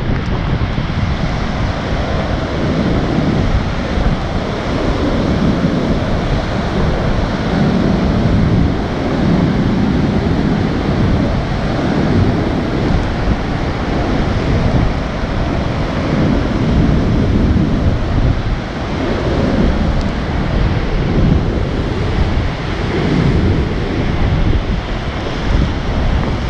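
Rough sea surf breaking against rocks and concrete breakwater blocks, a continuous rush that swells and eases in surges, with strong wind buffeting the microphone.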